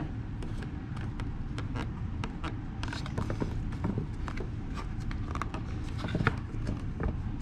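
Mitred wooden frame moulding pressed and shifted by hand in a corner clamp: scattered small clicks and creaks, irregular, over a steady low rumble.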